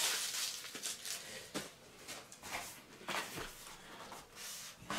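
Soft rustling and a few light clicks and taps of packaging being handled during unboxing.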